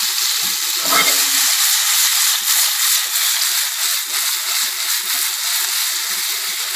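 Boiled broccoli florets sizzling in hot duck fat in a nonstick frying pan: a steady crackling hiss of sauteing.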